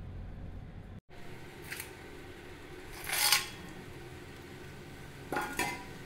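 Metal kitchenware clinking against a kadai holding hot oil, with a short, louder hiss about three seconds in and a ringing metal clink near the end.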